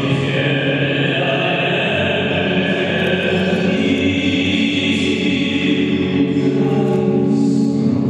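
Choral music with long, held voices, played as the skater's program music.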